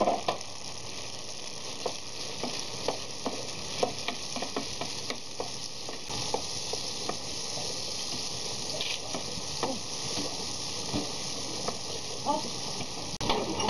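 Sliced mushrooms sizzling steadily in hot olive oil in a pot, with a wooden spoon stirring them and clicking against the pot now and then.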